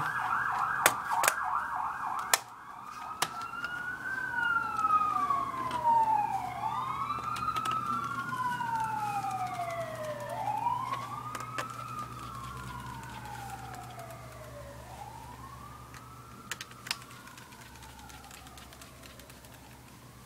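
Emergency vehicle siren passing outside. It starts on a fast warble, switches about two seconds in to a slow rising and falling wail, then fades away. A few sharp clicks early on and near the end, from the laptop's bottom cover being fitted back on.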